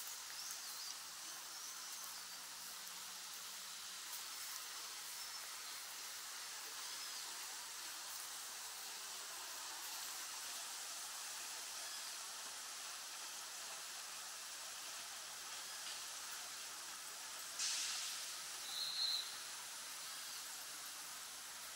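Steady hissing outdoor ambience of a city park, with faint distant bird chirps. A short rustling burst comes about 17 seconds in, and a brief bird call follows a second later.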